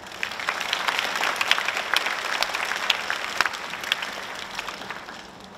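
Audience applauding, many hands clapping at once, swelling in the first second and fading away near the end.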